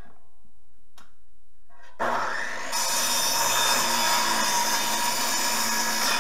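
Electric power saw cutting through a wooden 4x4 post. The saw starts suddenly about two seconds in and runs loudly through the cut.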